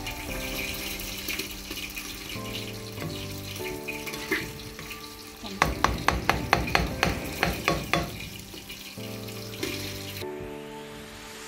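A spoon stirs cooked basmati rice in a wok, scraping and knocking against the pan. A quick run of about ten sharp knocks comes around the middle, about four a second. Background music plays throughout.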